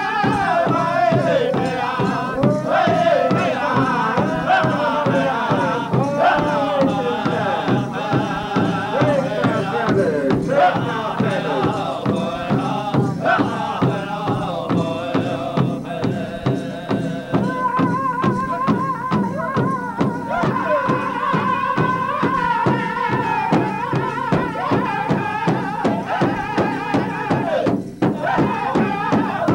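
Northern Plains powwow drum group singing an intertribal song: several men's voices in phrases that slide downward in pitch, over a steady, even beat on a large shared bass drum struck together with padded drumsticks.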